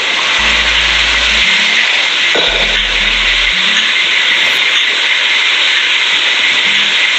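Loud, steady hiss of background noise on a low-quality phone-recorded voice message, between stretches of speech. A low hum comes and goes twice in the first half.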